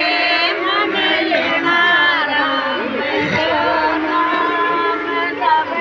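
Several women's voices singing together, over the chatter of a crowd.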